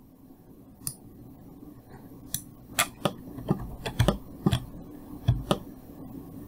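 Computer mouse and keyboard clicks: about a dozen sharp, irregular clicks, bunched between about two and six seconds in.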